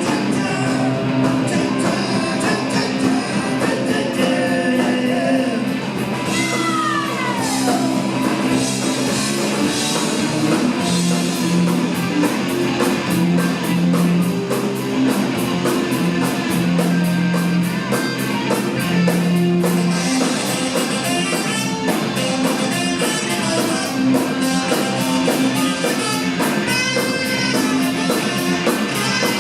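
Live rock band playing a song: electric guitar, bass and drums on a steady beat, with singing. A note slides down in pitch about seven seconds in.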